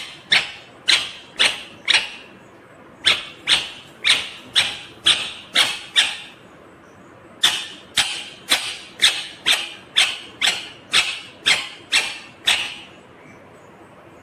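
Ringneck parakeet squawking: three runs of short, sharp, high calls, about two a second, with brief pauses between the runs.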